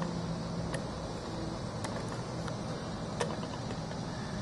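Steady low hum and rumble of background noise, with a few faint, short clicks.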